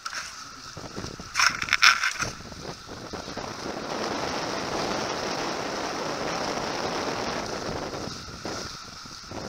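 Lines and a sheet winch working on a Farrier F-31 trimaran, a short spell of ratcheting squeaks about one to two seconds in, then a steady rush of wind and water.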